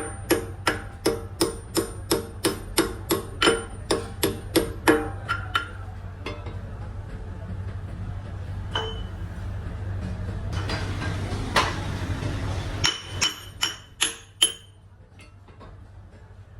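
Hammer striking metal in a steady quick run of about three blows a second, each with a short metallic ring, then a burst of rushing noise for about two seconds and a few more strikes. A low steady hum underneath stops near the end.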